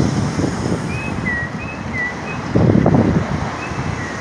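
Street background of traffic noise and wind on the microphone, with a louder rumble for about half a second near the middle. Through it comes a repeated high chirp, each one a short note followed by a falling one.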